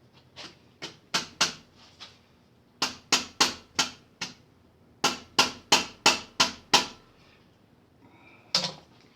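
Sharp metallic clicks and taps of a hand tool working on the distributor of a 428 Cobra Jet V8, which is stuck in its bore. They come in runs of several clicks, about three a second, with short pauses between the runs.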